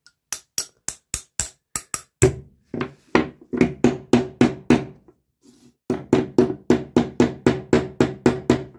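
Small metal hammer tapping the pivot rivet of a pair of steel pliers, about four blows a second, each with a brief metallic ring. The first blows are light, then heavier ones follow. There is a short pause about five seconds in before a fast run of blows.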